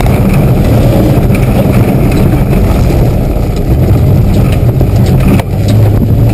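Mitsubishi 4x4's engine running hard under load on a rough off-road track, loud from inside the cabin, with scattered knocks and rattles. The engine sound dips briefly about five seconds in, then carries on.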